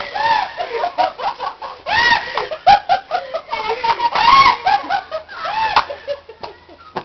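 A metal swing set squeaking, a rising-then-falling squeal about every couple of seconds in time with the swinging, with shorter squeaks in between.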